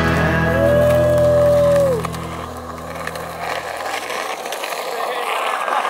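A piece of music with a long held note that ends about two seconds in. It gives way to skateboard wheels rolling on rough concrete.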